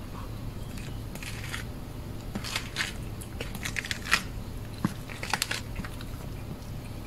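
Cat crunching and chewing food, a run of irregular crackly crunches coming in little clusters, over a steady low hum.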